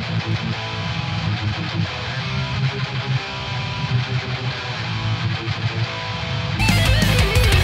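Electric guitar riff played back through the Ignite Amps ProF.E.T. amp plugin. Near the end, drums and the full band come in and the level rises.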